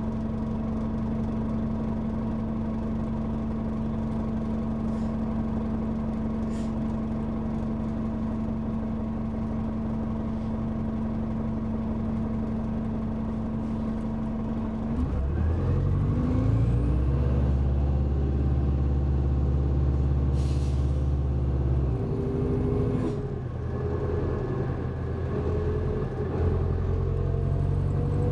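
Detroit Diesel Series 50 diesel engine of a 1998 New Flyer D40LF bus, heard from inside the cabin, idling steadily while the bus waits, then getting louder as the bus pulls away about halfway through. The engine pitch climbs, drops once as the Allison automatic transmission upshifts, and climbs again, with a brief hiss partway through the pull-away.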